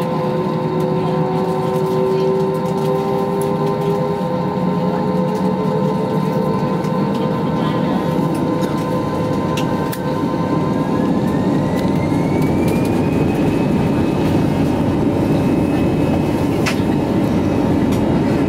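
Airbus A320-214 cabin noise at the over-wing window: the CFM56 jet engines run steadily with a rumble and a whine. About ten seconds in, the whine rises in pitch over a few seconds and holds higher as the engines spool up. A couple of sharp clicks are heard.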